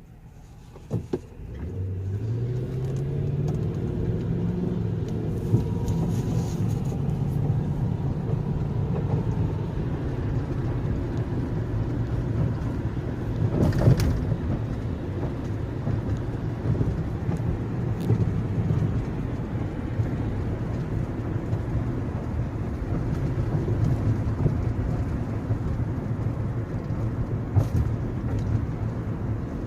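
Car engine starting about a second and a half in, just after two short clicks. Its note climbs for a few seconds and then settles into a steady run, with one sharp thump about fourteen seconds in.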